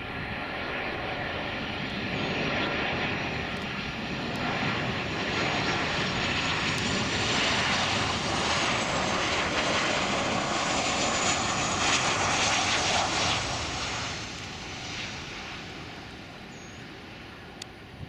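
CFM56-7B turbofan jet engines of a Boeing 737-800 on landing approach flying past. A broad rushing roar with a high whine on top swells to its loudest about halfway through, then fades over the last few seconds.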